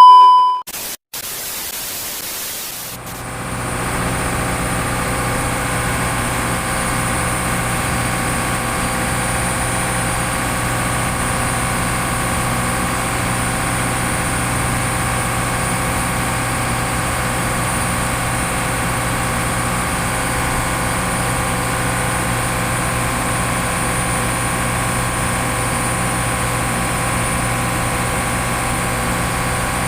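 Freezer machinery on a longline fishing vessel running steadily: a constant machine drone with a low hum and a thin high whine. It is preceded by a short loud beep and a couple of seconds of hiss.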